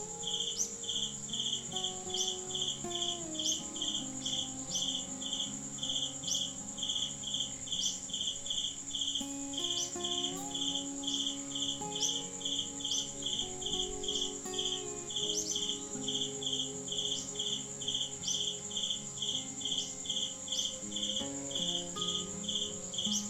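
Crickets chirping in a very regular pulse, about three chirps a second, over a steady high insect trill, with low sustained tones shifting in pitch underneath.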